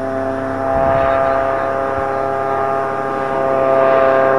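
Light aircraft engine and propeller droning steadily overhead, growing louder near the end as the plane comes closer.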